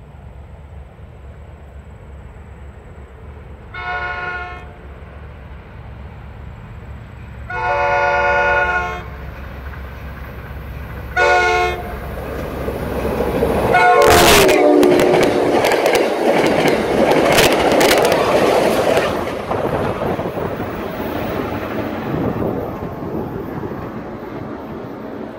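NJ Transit commuter train approaching cab car first, sounding a multi-chime horn three times (short, long, short). It then passes close at speed with rushing air and rapid wheel clatter over the rail joints and a brief horn note that drops in pitch as it goes by, then fades away.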